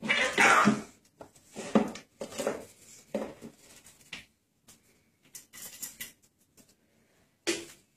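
Blue Indian ringneck parakeet's claws and beak tapping and scrabbling on a hard countertop: a few short, irregular clattering bursts, most of them in the first half and one more near the end.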